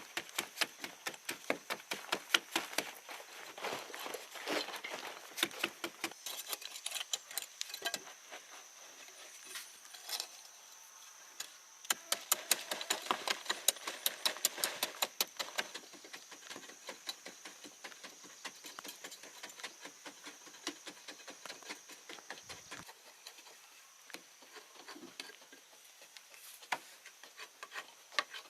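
Quick light taps and clicks coming in busy runs of several a second, with a steady thin high whine behind them.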